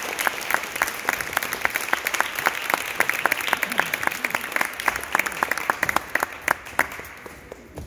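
Audience applauding, many hands clapping, thinning out and dying away near the end.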